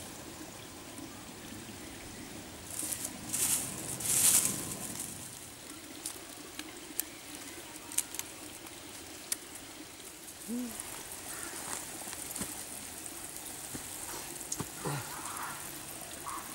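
Small twig campfire catching and crackling, with sharp snaps of burning sticks. There are two loud hissing rushes about three and four seconds in.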